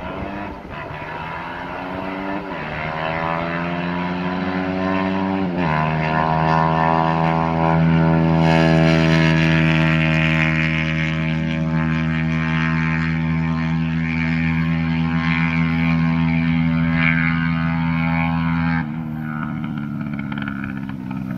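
Single-cylinder 190cc engine in a Honda ATC70 three-wheeler at full throttle: the revs climb with two quick dips at gear changes in the first six seconds, then hold at a high, steady buzz at top speed, about 76 mph, before the throttle is cut near the end.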